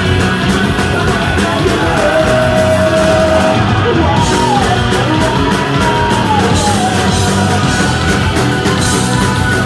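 Live punk rock band playing loud: distorted electric guitar, bass guitar and drums with crashing cymbals, and a singer yelling into the microphone.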